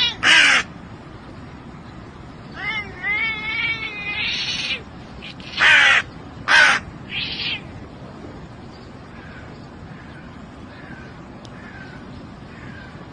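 Crow cawing. Loud harsh caws come just after the start and again about six to seven and a half seconds in, with a wavering, warbled call between them around three to four seconds in. Fainter short calls follow through the second half.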